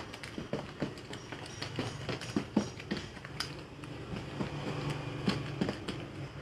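Domino playing cards being picked up off a tabletop and handled: a run of irregular light clicks and taps, over a low steady hum.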